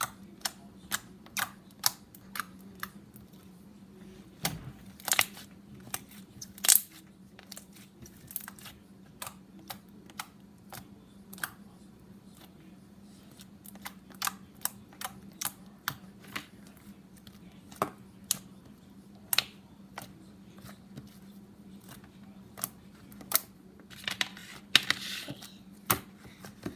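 Clear slime being squished and played with by hand for ASMR, making sharp, irregular pops and clicks, several loud ones, with a denser crackly patch near the end.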